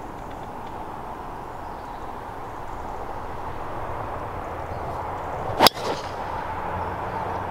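A golf club striking a ball on a full swing: one sharp crack about five and a half seconds in, over a steady outdoor background hiss.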